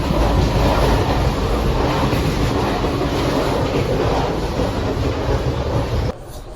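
Passenger train running along the track: a steady loud rumble of the carriage and wheels on the rails, which cuts off suddenly near the end.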